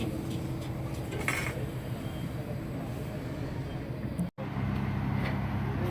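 Steady low mechanical hum, like a motor running, with a few faint clicks. It drops out for an instant about four seconds in and comes back slightly louder.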